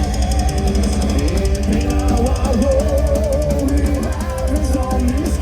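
Heavy metal band playing live: electric guitars and a wavering melody line over fast, driving drums and cymbals.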